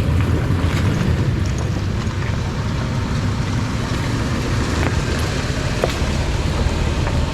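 Four-wheel-drive vehicle's engine running low and steady as it crawls a rocky trail, with scattered clicks and knocks from the tyres on the rock.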